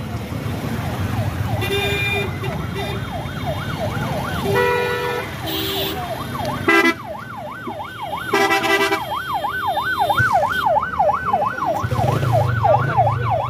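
A siren-like warbling tone, sweeping up and down about four times a second, with several short horn blasts over it and a low engine rumble that grows louder near the end.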